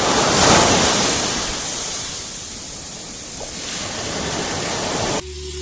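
A loud, even rushing noise like surf or static, starting abruptly, swelling in the first second and easing off. It cuts off suddenly near the end as music begins.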